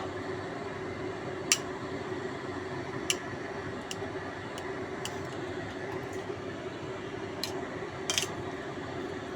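Steady low hum with about six sharp clinks scattered through it, the loudest about one and a half seconds in: kitchen utensils knocking against pots or dishes.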